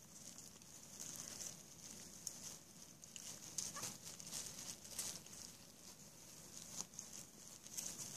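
Young puppies lapping and slurping soft puppy gruel from a shallow dish: faint, irregular wet clicks and smacks.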